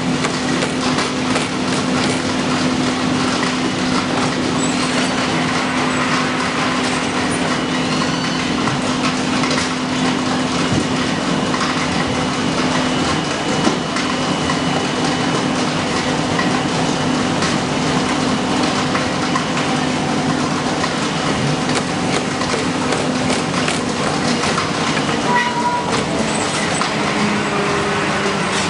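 Corrugated board production line (corrugator) running: a steady mechanical clatter of conveyor belts and rollers carrying cut board sheets. A steady hum runs underneath and fades out about halfway through.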